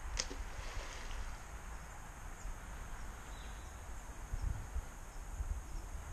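Quiet outdoor ambience: an uneven low rumble on the microphone over a faint hiss, with one short high chirp just after the start.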